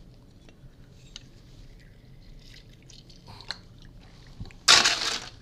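Lime juice measured in a brass jigger and poured into a glass mixing glass: faint small clinks and handling noises, then a short splash of pouring liquid, about half a second long, near the end.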